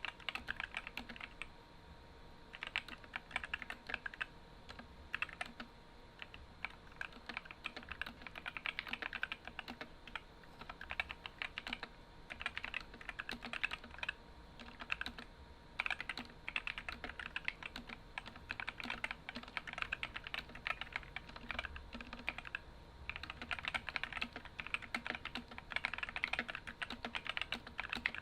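Typing on an Epomaker SK64 60% mechanical keyboard fitted with stock, unlubed Gateron optical red linear switches and ABS keycaps. Fast runs of key clacks with a few brief pauses.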